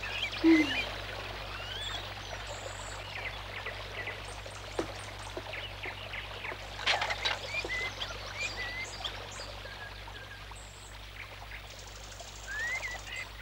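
Flowing stream with small birds chirping in short calls throughout; a short low sound about half a second in and a sharp sound about seven seconds in stand out above it.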